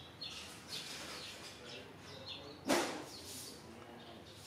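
Small birds chirping in short, high, repeated notes. One loud, sudden noise comes a little after the middle.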